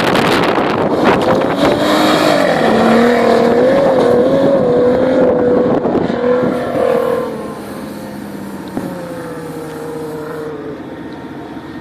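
Off-road 4x4's engine running hard at high revs, its pitch wavering up and down, then dropping in level about seven seconds in and sliding down in pitch as it moves away.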